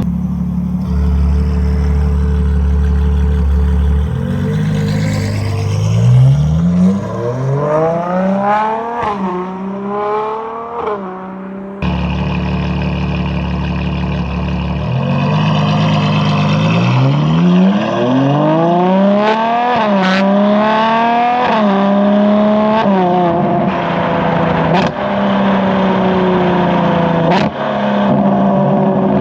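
Ferrari 812 Competizione's naturally aspirated V12, breathing through a Novitec exhaust, accelerating hard twice, its note climbing in pitch and dropping back at each upshift. Two sharp cracks come near the end.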